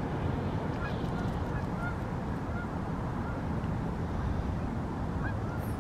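Steady low rumble of distant city traffic, with faint short bird calls repeating about twice a second over it.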